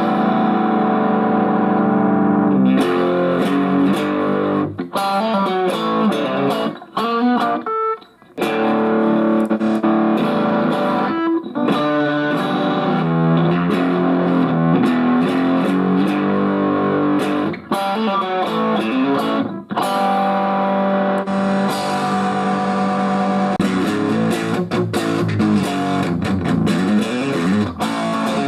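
Electric guitar played through a Fender Super Champ XD tube amp, with chords struck and left to ring, broken by a few short stops.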